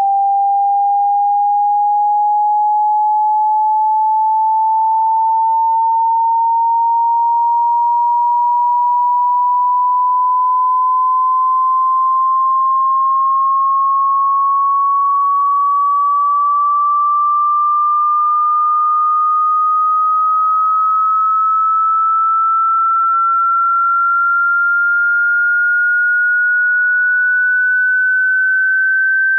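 Hearing-test sine tone: a single pure tone gliding slowly and steadily upward in pitch, climbing about an octave at an even loudness, part of a frequency sweep through the hearing range.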